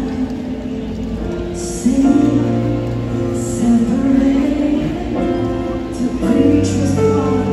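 Live church worship music: singing with instrumental accompaniment, held notes over a steady bass line, amplified through the sound system of a large arena.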